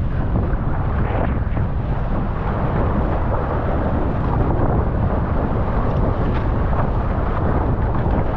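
Strong wind buffeting a GoPro's microphone in a steady, loud rumble while windsurfing, mixed with water rushing past.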